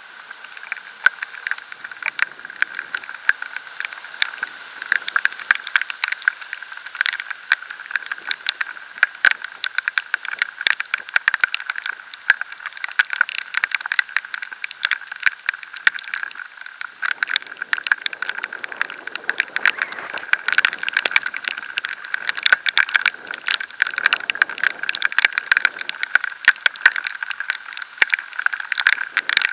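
Raindrops and road spray striking a camera while riding in the rain: a dense, irregular stream of small sharp clicks over a steady hiss, with a low rumble joining from about the middle.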